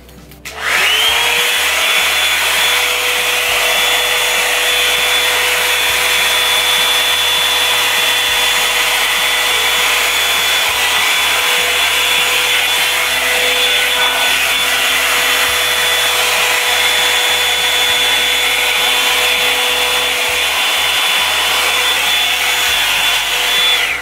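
Revlon One Step Volumizer hot-air brush running on its high setting: a loud, steady blowing rush with a steady motor whine. It switches on about half a second in, the whine rising briefly as the motor comes up to speed, and it stops right at the end.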